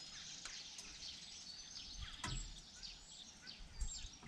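Faint birdsong: many short chirps and whistles from birds, over a quiet outdoor background, with a soft knock about two seconds in.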